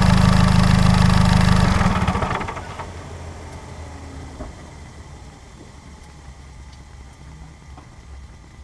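Mazdaspeed 3's turbocharged 2.3-litre four-cylinder pulling hard, then the throttle lifts about two seconds in. The turbo flutters in a quick fading chatter, compressor surge because the blow-off valve is blocked off. The engine then settles to a much quieter cruise.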